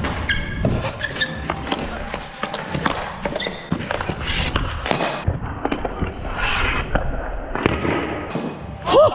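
Floor hockey sticks and a plastic ball clacking on a hardwood gym floor: a rapid, uneven run of sharp knocks and taps. A brief shout comes near the end.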